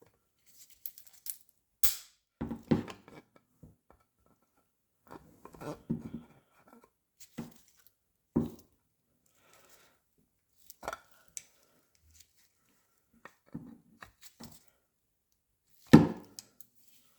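Hard plastic grading slab being cracked open slowly: scattered irregular clicks, creaks and snaps of the case, with a louder crack near the end.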